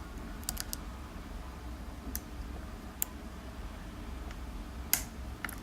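Small, sharp clicks of a lock pick and tension wrench working the pin stack of a pin-tumbler lock during picking: a short cluster about half a second in, then single clicks a second or two apart, over a low steady hum.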